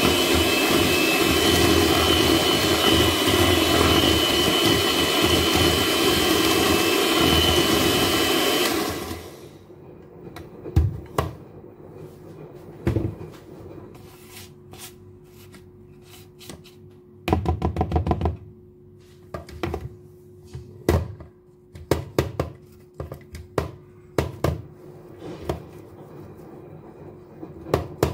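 Electric hand mixer running steadily, creaming butter and sugar in a plastic bowl, switched off abruptly about nine seconds in. After that a spatula scrapes the bowl and the beaters, with scattered knocks and taps and a brief rattle about halfway through.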